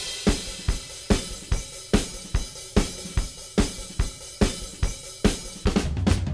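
Intro music: a rock drum beat with a kick, snare, and steady hi-hat and cymbals. Sustained low notes join the beat near the end.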